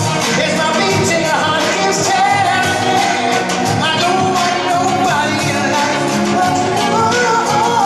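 Live concert music: a band playing, with a lead voice singing long held, slightly wavering notes.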